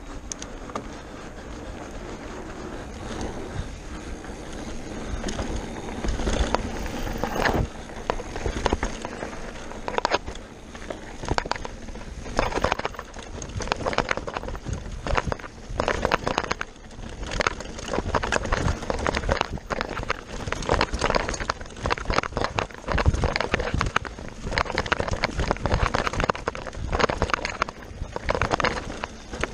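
Mountain bike riding fast down a rough, rocky dirt trail: tyres crunch over dirt and stones, with frequent irregular knocks and rattles from the bike over the rough ground.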